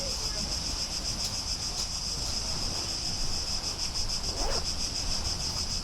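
A chorus of insects chirring steadily, a high rapid pulsing trill, over a low rumble.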